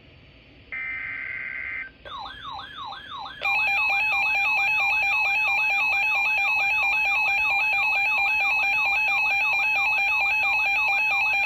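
Emergency alert broadcast tones, as they precede a severe thunderstorm warning. About a second in there is a short burst of steady high data tones. From about two seconds a fast warbling, siren-like tone starts, and a second and a half later a loud steady alert tone joins it and holds.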